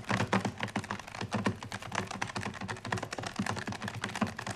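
Desktop calculator keys punched rapidly by hand, a fast, uneven run of small plastic clicks.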